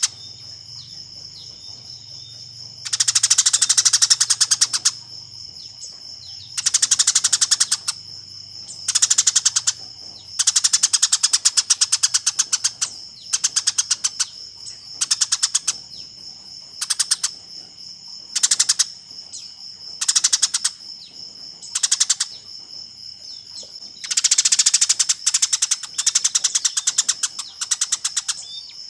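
Eurasian tree sparrow giving fighting calls: repeated bursts of rapid, shrill chattering chirps, each half a second to two seconds long, with short pauses between. A steady high ringing tone runs underneath.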